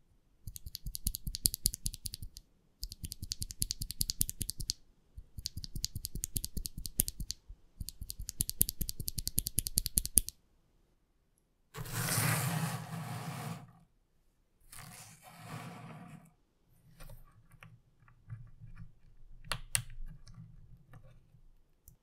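LEOBOG Juggle v2 tactile switches (POM, factory lubed) pressed rapidly between the fingers, giving four bursts of fast plastic clicking with short pauses between them. Then a pile of loose switches is swept across a hard tabletop twice, rattling and scraping, followed by a few scattered light plastic clicks as a switch is handled.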